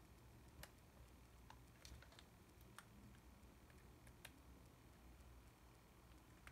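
A handful of faint, irregular small clicks from a hand tool working on the internal parts of a disassembled Yashica T4 camera, over near silence.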